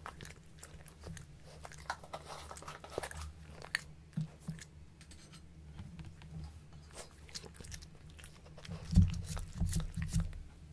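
Samoyed smacking and chewing on a mouthful of sticky peanut butter, with scattered wet mouth clicks. A louder spell of low thuds comes about nine seconds in.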